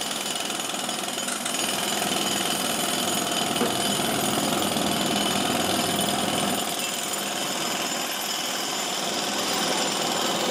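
Pneumatic jackhammer hammering steadily without a break, over the general noise of a busy city street.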